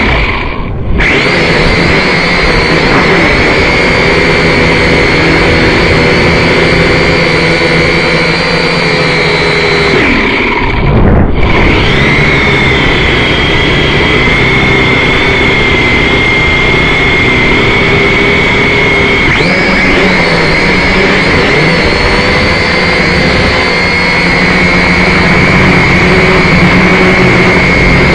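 Small cheap quadcopter drone's electric motors and propellers running, heard from on board the drone: a loud steady high whine over a dense rushing noise. It dips briefly about a second in and again about eleven seconds in, and its pitch shifts a little a few times.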